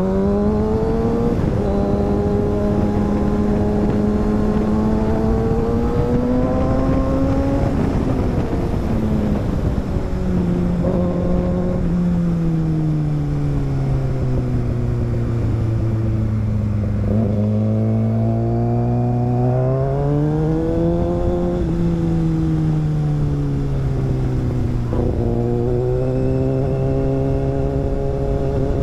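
Sport motorcycle's inline-four engine, a Kawasaki ZX-6R 636, riding in traffic. Its pitch rises under acceleration, holds while cruising, and falls through a long slowdown before rising again. A steady rush of wind noise runs underneath.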